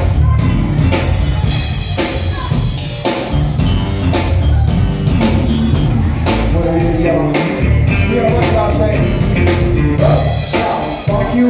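Live band playing with a steady drum-kit beat and a prominent electric bass guitar line.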